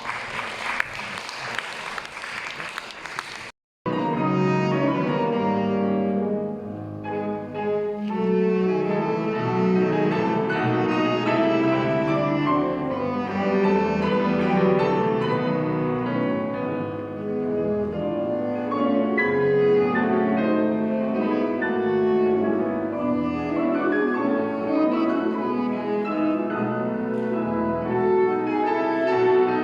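Live classical piano duet, a romantic piece with long held notes, starting about four seconds in. Before it comes a brief stretch of noisy sound that cuts off suddenly.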